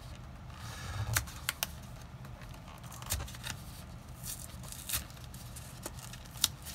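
Magic: The Gathering theme booster pack being torn open by hand: crinkling and a string of sharp tearing snaps, the sharpest near the end.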